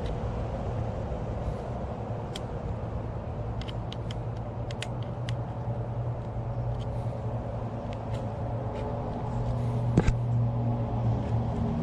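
A steady low hum in the background, with scattered small sharp clicks and one louder knock about ten seconds in, from parts of a handlebar phone mount being handled and fitted.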